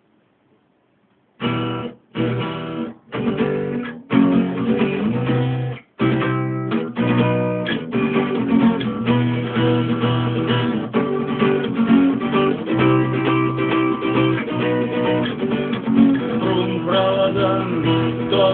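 Acoustic guitar strummed: after a second and a half of near silence come a few separate chords with short gaps, then steady rhythmic strumming from about six seconds in.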